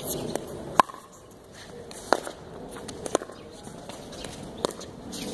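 Pickleball paddles hitting a hard plastic ball back and forth in a rally: four sharp pops about one to one and a half seconds apart, with a few fainter taps between.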